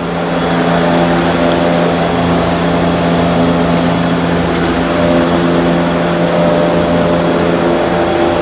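A steady mechanical hum made of several held pitches, unchanging throughout. About four and a half seconds in there is a brief light scrape as the engine oil dipstick is drawn out of its tube.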